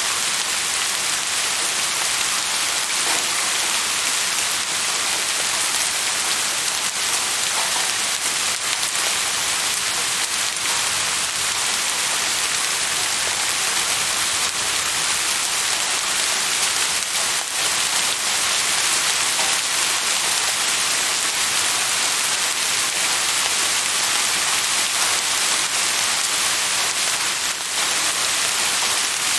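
Steady rain falling on a surface, an even hiss of many drops with a few heavier ones here and there.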